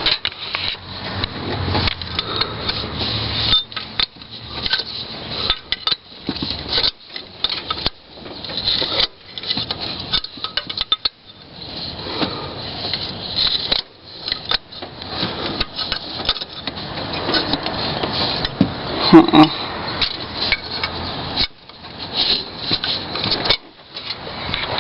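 Wrench clinking, scraping and knocking irregularly against the engine block and the coolant temperature sender as it is worked loose, with one louder metal clank about 19 seconds in.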